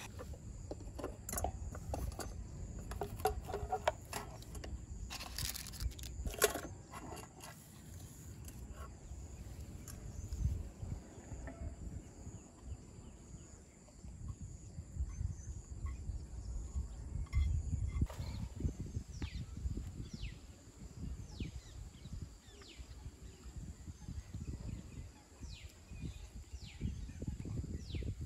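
A bird calling repeatedly, short high falling chirps about once a second, starting about two-thirds of the way in, over a steady low rumble. Several clicks and knocks in the first few seconds.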